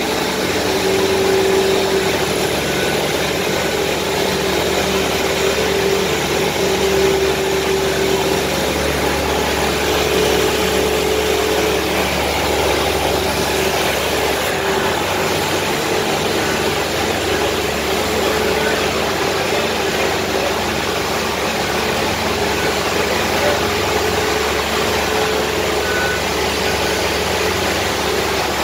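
Construction machinery engine running steadily, with a wavering mid-pitched hum over a constant engine drone.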